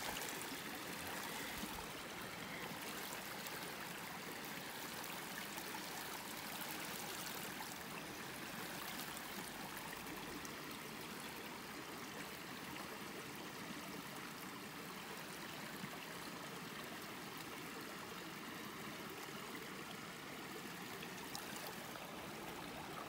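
Running water: a steady, even rush that holds unchanged throughout.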